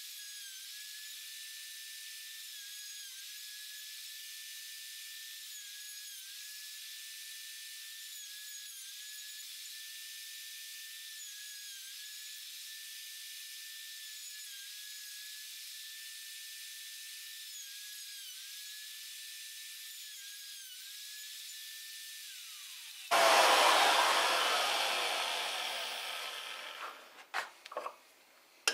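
Router cutting flutes into a turned wooden finial on a lathe. Its high whine dips briefly in pitch every couple of seconds as the bit bites into the wood. About three-quarters of the way through the whine falls away, and a loud rushing noise starts suddenly and fades over a few seconds, then a few clicks.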